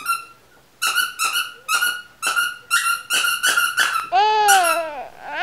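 A squeaky toy bunny being squeezed over and over, short squeaks of the same pitch about two to three a second, as the English Cocker Spaniel puppy plays with it. Near the end, a drawn-out cry from the puppy that rises and falls in pitch.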